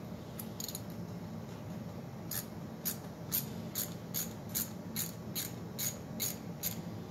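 Hand socket ratchet clicking as it backs out a bolt on an engine: a few faint clicks at first, then a steady run of clicks, a little over two a second, from about two seconds in.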